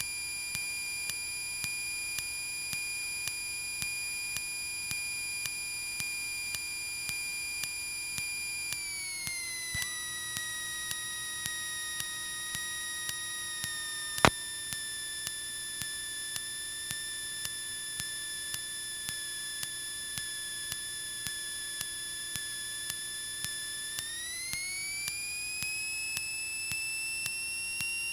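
A steady, high electrical whine in the Cessna 152's cockpit audio feed. Its pitch drops about nine seconds in and climbs again near the end. Faint regular ticks come about every 0.7 seconds, and there is one sharp click about halfway through.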